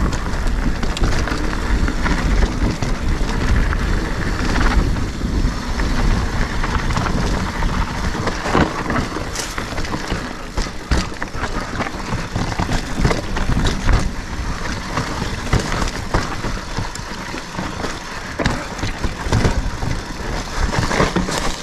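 Mountain bike riding over a rocky, technical trail: a steady rumble of tyres on rock, broken by frequent sharp knocks and rattles from the bike.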